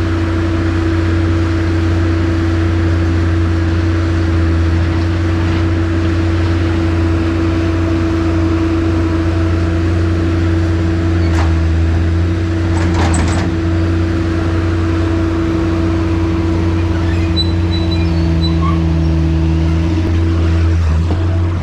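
Skid steer engine running steadily at a constant pitch, with a couple of brief clanks around the middle.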